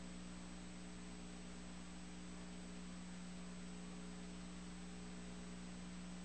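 Steady electrical mains hum with an even hiss and a thin high whine, unchanging throughout; no race sounds or commentary are heard.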